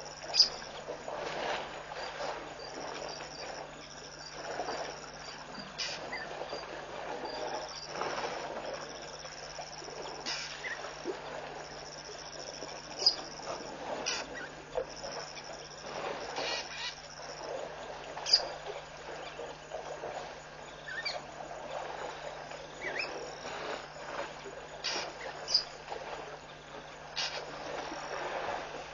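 Waterhole ambience: high insect trills that come and go, a few sharp short bird chirps, and irregular soft splashing and shuffling from a herd of African elephants drinking at the water's edge, over a steady low hum.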